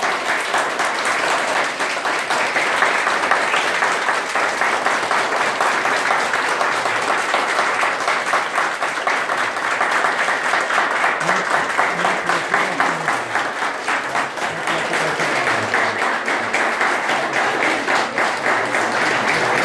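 Audience applauding: a roomful of people clapping steadily and at length.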